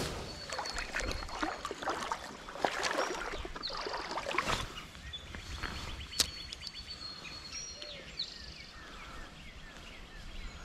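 Water splashing and sloshing at a creek for the first few seconds, then quieter, with thin high bird chirps.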